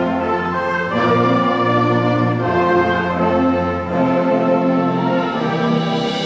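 Middle school concert band of woodwinds and brass playing slow, sustained chords that change about every second and a half. The low brass hold their notes until about four seconds in.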